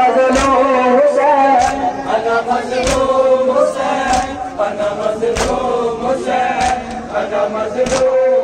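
Group of men chanting an Urdu nauha, a Shia mourning lament, in unison. Matam chest-beating slaps come in time with the chant, about one every 1.2 seconds.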